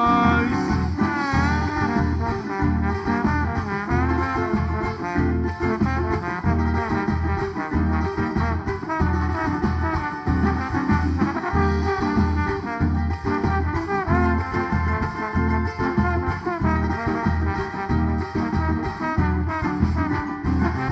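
A band plays an instrumental break with no singing: horns carry the melody over a steady drum and bass beat.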